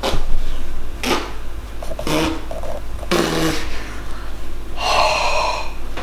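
Food being scraped down a metal box grater in rough rasping strokes, five of them about a second apart.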